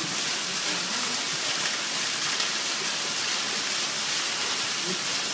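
Steady, even hiss at a constant level, with no rhythm or pitch to it.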